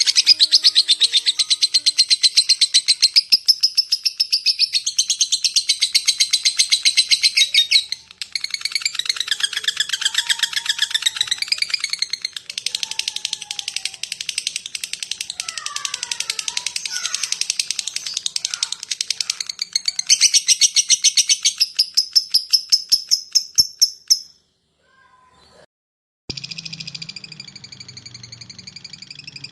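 Lovebird singing its rapid 'ngetik' (typing) chatter: long unbroken strings of fast, sharp, high-pitched ticking notes. The song stops briefly twice, once about eight seconds in and for nearly two seconds near the end, then resumes more quietly over a low hum.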